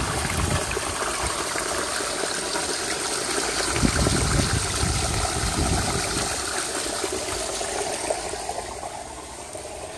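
Garden pond fountain splashing and bubbling steadily, the water churning up around a stainless steel ball. There is a low rumble on the microphone about four to six seconds in, and the splashing grows fainter near the end.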